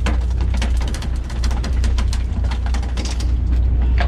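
Sounds aboard a sportfishing boat: a steady low rumble with many irregular sharp clicks and knocks over it.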